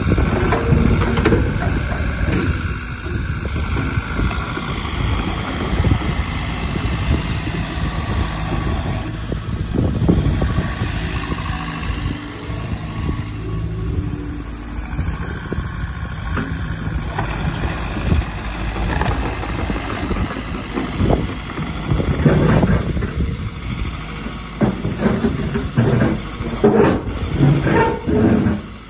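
Diesel engine of a JCB 86C excavator running, its pitch shifting now and then, with a string of knocks and clanks over the last several seconds.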